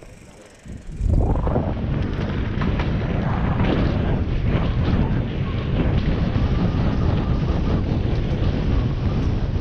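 Wind rushing over an action camera's microphone as a mountain bike rolls down a dirt trail, with tyre noise and frequent knocks and rattles from the bike. It is quieter for about the first second, then gets loud as the bike picks up speed.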